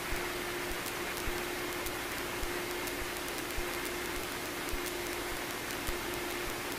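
Cessna 150's four-cylinder Continental O-200 engine idling, heard as a steady hiss with a faint steady hum and a soft tick about once a second.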